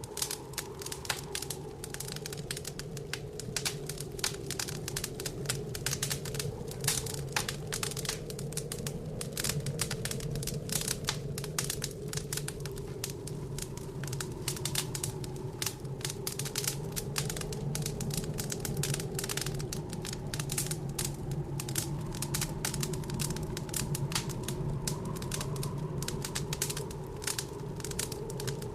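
Wood fire crackling in a fireplace: dense, irregular sharp pops and snaps. Underneath runs a steady low whooshing of blizzard wind that wavers slowly.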